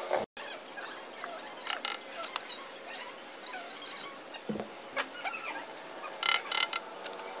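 A small steel trowel scraping and smoothing wet cement render, with two louder scrapes, one about two seconds in and one near the end.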